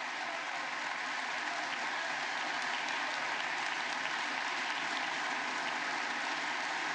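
Large audience applauding steadily, a sustained round of clapping that neither builds nor fades.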